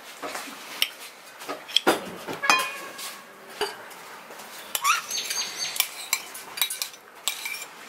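A metal spoon scraping and clinking on china plates as diced vegetables and cheese cubes are pushed off into a glass bowl. The clicks and knocks are scattered and irregular, and one clink rings on briefly about two and a half seconds in.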